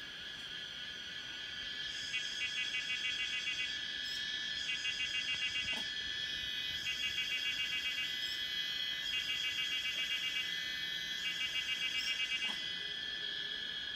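Forest insect chorus: a steady high drone, with a rapidly pulsing call repeating five times in phrases of about a second and a half.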